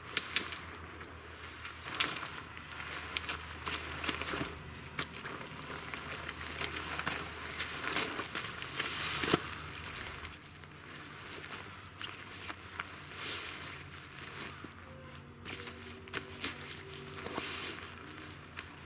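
Nylon tent fabric rustling and crinkling as it is folded and rolled up by hand, with a few sharp knocks, the loudest about two seconds in and again about nine seconds in.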